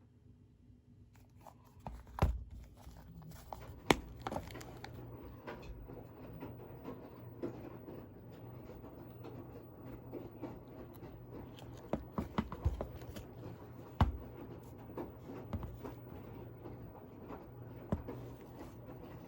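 Packaging being handled and opened by hand: light rustling and scraping, with a dozen or so sharp taps and knocks of box and contents set down or moved.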